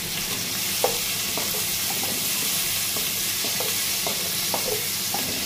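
Ginger and garlic sizzling in hot oil in a pot, with a steady hiss, while a utensil stirring them scrapes and knocks against the pan every half second or so.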